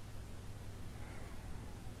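Faint steady low hum and hiss of room tone in the pause between a sleeping person's slow breaths.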